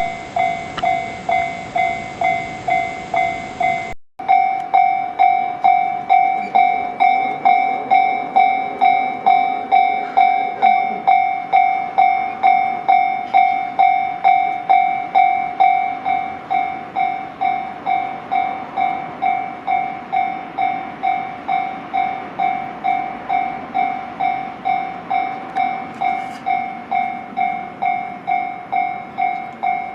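A Japanese level-crossing warning bell clanging steadily at about two strikes a second. About four seconds in it cuts to a second recording of the bell, a slightly different single tone, for comparison of the crossing's alarm before and after renewal.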